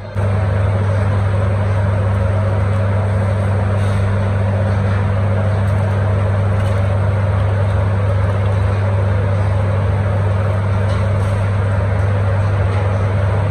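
Loud, steady machine drone with a deep hum.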